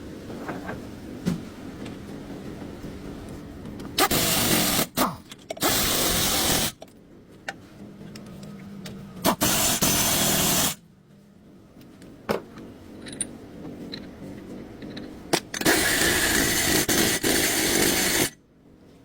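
A power tool run in four bursts of one to three seconds each, stopping and starting abruptly, with quieter clinks and clicks of work in between.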